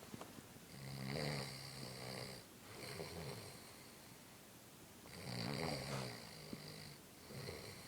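Sleeping person snoring: two breath cycles about four seconds apart, each a longer low, rattling snore followed by a shorter, weaker one.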